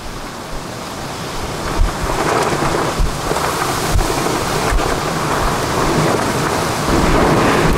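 Heavy rain driven by rear-flank downdraft winds of a tornadic supercell: a loud, steady rush that swells twice, with low rumbling thumps underneath.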